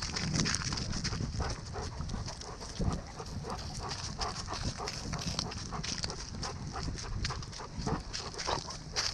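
A dog's breathing and paw steps heard close up on a camera worn by the dog, with many quick clicks and rustles through the walk.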